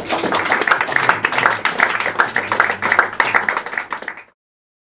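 Audience applauding with dense, fast hand claps. The applause cuts off suddenly about four seconds in.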